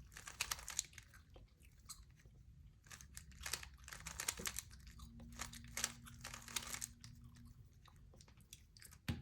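Plastic 3x3 Rubik's Cube being turned by hand: faint clusters of quick clicking and rattling as the layers twist, in a few separate bursts.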